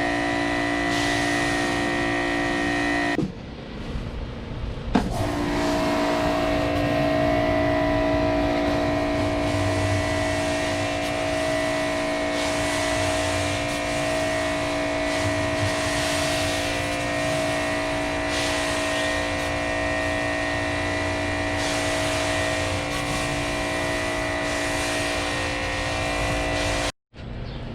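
Ryobi 2000 psi electric pressure washer running with a steady whine, its water spraying with a hiss through the 12-inch surface cleaner. It stops about three seconds in, then starts again with a click about two seconds later, and cuts off abruptly just before the end.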